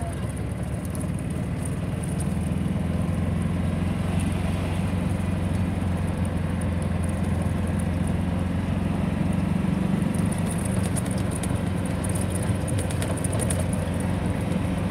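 A golf cart driving along a paved lane: its motor gives a steady low drone, with road and wind noise and light rattles over it.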